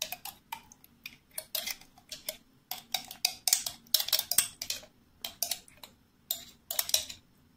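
Metal utensil scraping thick tomato paste out of a glass jar, a quick series of short scrapes and clinks against the glass, about two a second.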